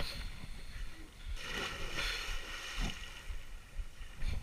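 Swimmers splashing in open water: a soft hiss of moving water that swells about a second and a half in, over a low rumble.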